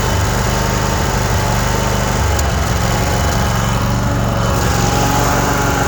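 Cub Cadet RZT zero-turn mower's 24-horsepower engine idling steadily, throttled down with the blades disengaged.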